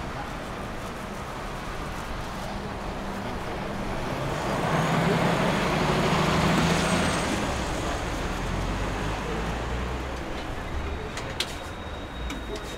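A heavy road vehicle passing in street traffic: a low engine hum and road noise that swell to a peak about halfway through and then fade. A single sharp click near the end.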